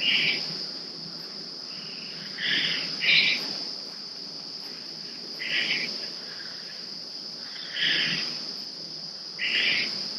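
Steady high-pitched insect chorus, likely crickets, in early-autumn woods. Short louder sounds break in about every two seconds, six times in all.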